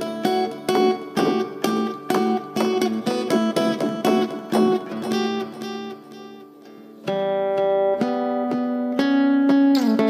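Steel-string acoustic guitar played through a delay effect: quick picked notes follow and overlap one another, die away about six seconds in, then sustained ringing notes start about a second later, with a pitch slide near the end.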